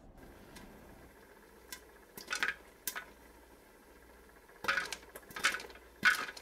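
A series of light, sharp clinks, about six, unevenly spaced and louder in the second half.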